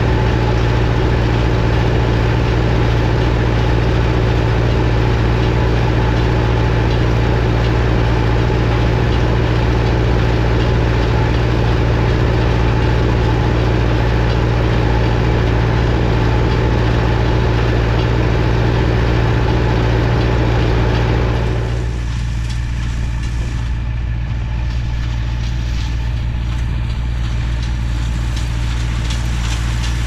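Massey Ferguson 178 tractor's diesel engine running steadily while driving a New Holland 317 hay baler. About two-thirds of the way through, the sound turns quieter and duller while the engine runs on.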